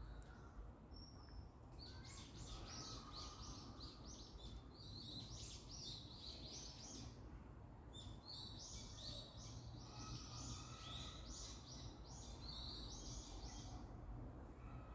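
A songbird singing two long, fast runs of high chirping notes, over a faint low background rumble.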